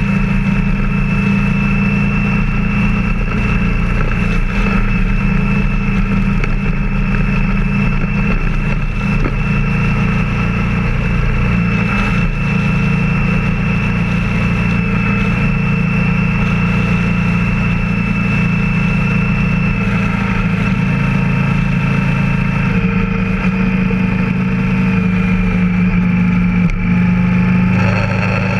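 A motor vehicle's engine and road noise at a steady highway cruise, with a constant high whine above the low engine note, which changes slightly about two-thirds of the way through.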